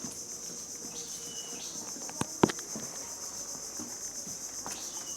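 Steady, high-pitched drone of insects, with two sharp clicks about two and a half seconds in, the second one loud.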